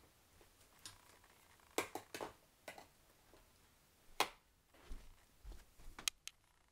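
Scattered light clicks and knocks of things being handled, about ten in all, coming singly and in small clusters, with the loudest knock about four seconds in.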